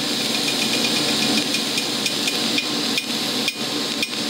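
TIG welding arc burning steadily as filler rod is fed into the puddle: a steady crackling hiss with faint ticking and brief dips about every half second.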